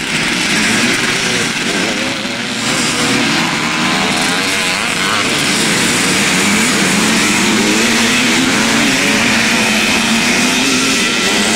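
Several motocross motorcycle engines racing, their pitch rising and falling as the riders open and close the throttle.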